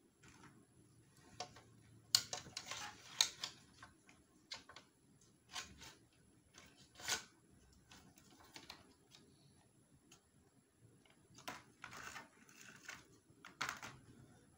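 Light plastic clicks and taps as the pieces of a toy makeup kit are handled, opened and set down on a tabletop. They come in scattered clusters: a busy run a couple of seconds in, a single louder tap around halfway, and more near the end.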